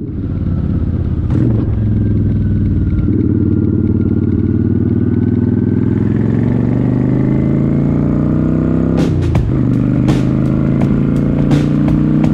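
Motorcycle engine running on the move, its note climbing slowly over several seconds and dipping briefly about nine seconds in, with a few sharp clicks near the end.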